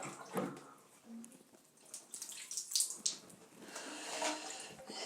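Water trickling and splashing as it runs through and leaks out of loosely joined pipe pieces, in scattered bursts with a knock about half a second in.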